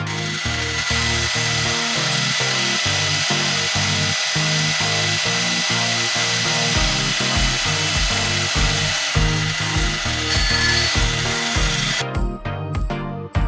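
Machine tool cutting metal: a steady high whine over a loud hiss, which stops about a second and a half before the end, with background music and a rhythmic bass line throughout.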